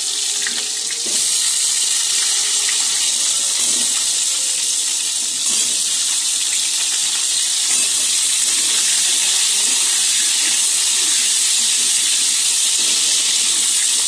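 Potato chunks frying in hot oil in a kadai, a loud, steady sizzle, with a metal spatula scraping the pan as they are stirred.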